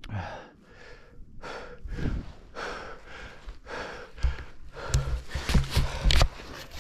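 A snowboarder breathing hard and fast, about two breaths a second, out of breath. Low thumps and a few sharp clicks join in during the last couple of seconds.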